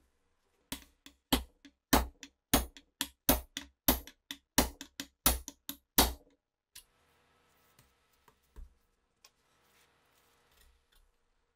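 Hammer blows on a rusty steel gun part clamped in a bench vise: a quick run of sharp, ringing metallic strikes, about three a second and alternating heavier and lighter. The strikes stop about six seconds in, followed by a few faint handling clicks.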